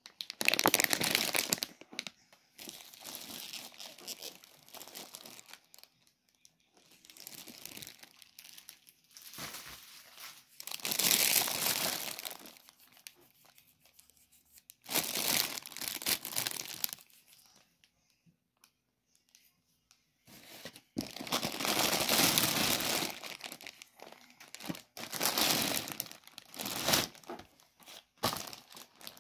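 Plastic food packaging crinkling as it is handled and turned over, in repeated spells of one to three seconds with short pauses between.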